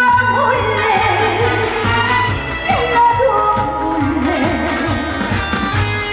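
Live trot song: a woman singing a melody with strong vibrato over a band accompaniment with a steady bass line.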